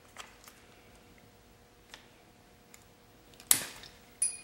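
Snap ring pliers working a snap ring off a transmission gear shaft: a few small clicks, then a sharp snap about three and a half seconds in as the ring springs off the pliers, and a metallic clink with brief ringing near the end as it lands.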